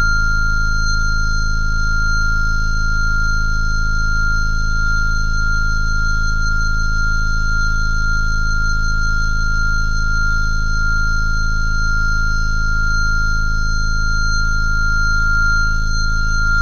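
A steady, high-pitched electronic tone held without a break over a low drone, unchanging throughout.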